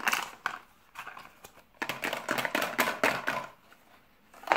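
Two ten-sided percentile dice being shaken, with a dense rattle lasting over a second, then tossed out and clattering onto a clipboard near the end. There is a single sharp clack at the start.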